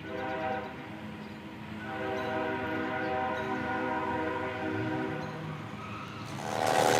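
CSX freight locomotive's air horn sounding a chord: a short blast, then after a pause a long blast of about three and a half seconds, over the low rumble of the passing train. A louder noise swells up near the end.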